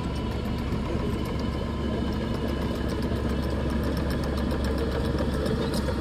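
Komatsu crawler bulldozer's diesel engine running steadily while the dozer pushes wet mud, with a rapid light clicking over it, most likely from the steel tracks.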